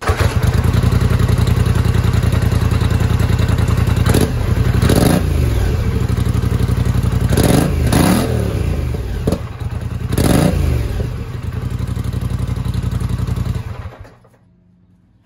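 Polaris Sportsman 850's twin-cylinder engine running through its stock muffler at idle, blipped several times with the throttle so it revs up and falls back. The sound stops about a second before the end.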